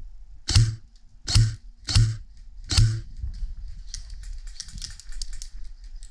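Four sharp airsoft gun shots, about two-thirds of a second apart. They are followed by a faint, rapid patter of clicks, like more distant airsoft fire.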